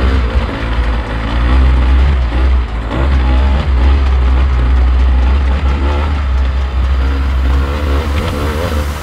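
Dirt bike engine running and revving up and down repeatedly.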